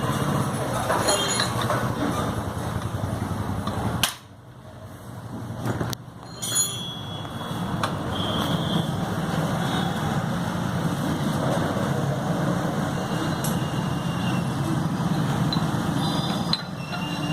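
Motorcycle engine running steadily. It drops away sharply about four seconds in and picks up again around six seconds.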